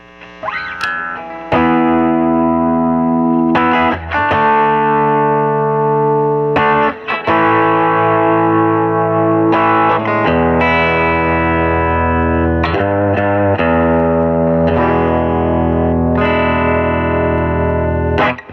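Electric guitar played through an overdrive pedal with a compressor switched on, ringing out a run of sustained, slightly distorted chords that change every couple of seconds and stop near the end.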